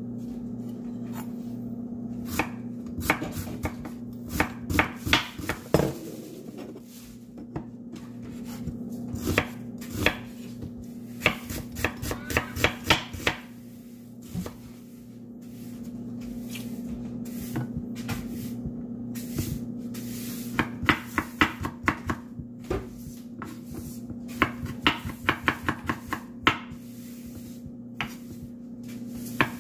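Chef's knife slicing a red onion, then garlic cloves, on a wooden cutting board: runs of quick taps of the blade on the board with pauses between. A steady low hum runs underneath.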